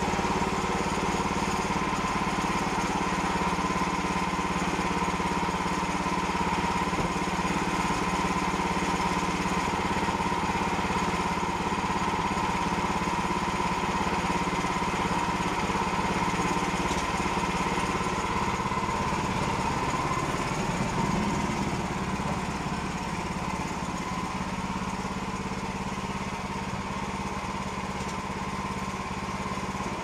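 Woodland Mills HM122 portable bandsaw sawmill running at working speed: its small gasoline engine drives the band blade with a steady drone and an even whine. It grows slightly quieter in the last several seconds.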